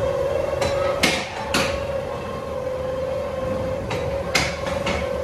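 Ghost-train dark ride: a series of sharp bangs and knocks, a few close together about a second in and another cluster near the end, over a steady droning tone.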